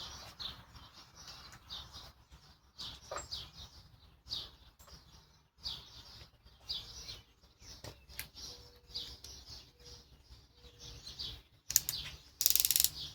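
Birds chirping off and on in the background, then near the end a short loud burst of rapid ratcheting clicks from a cordless drill's keyless chuck being turned by hand.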